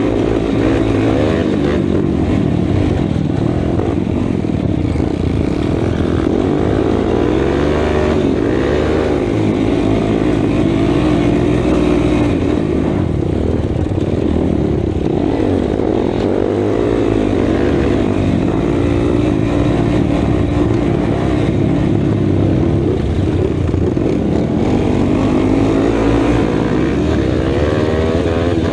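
Race ATV engine at race pace under the rider, its pitch climbing and dropping again and again as the throttle is worked and gears change over rough dirt.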